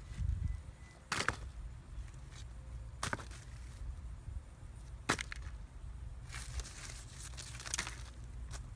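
Sharp taps and rustling as kitchen scraps and peels are dropped into a plastic 5-gallon bucket, three clicks about two seconds apart, then a sheet of newspaper rustling near the end.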